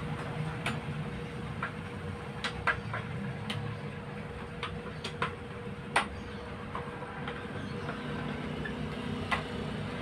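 Scattered metallic clicks and taps of hand tools working at the hub of an engine-driven radiator fan while its blades are loosened from the fan clutch, the sharpest tap about six seconds in. Under them runs a steady low hum with one steady tone.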